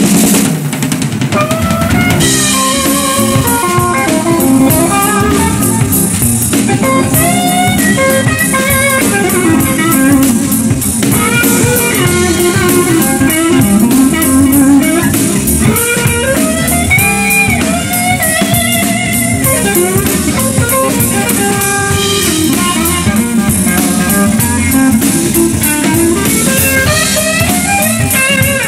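Live blues band playing an instrumental intro through a board mix: lead electric guitar lines with many bent, gliding notes over drum kit and bass.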